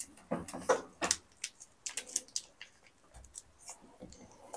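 Plastic sachet of hot pot seasoning paste crinkling in the hand as the paste is squeezed out into a stainless steel pot: a string of small, irregular crackles and clicks.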